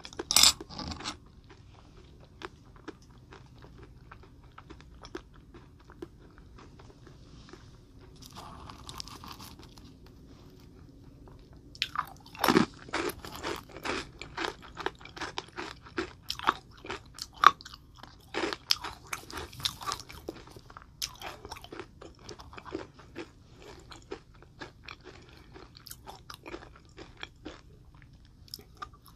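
Close-miked chewing and crunching of small hard candy pieces. A few crunches at the start, then about ten seconds of soft chewing, then dense, crisp crunching from about twelve seconds in until near the end.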